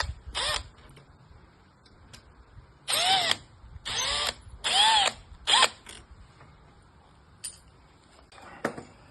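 Cordless drill-driver run in about five short trigger pulls, its motor whine rising and falling in pitch with each pull. It is taking out the screws of an old door knob set, followed by a few faint clicks near the end.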